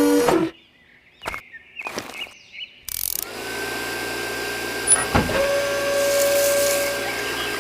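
A few clicks, then a tiny electric submersible water pump starts about three seconds in and runs steadily with a constant motor whine.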